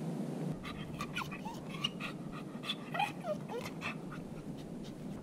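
A dog sniffing and panting in quick short breaths, with a few short whines, from about half a second in until about four seconds.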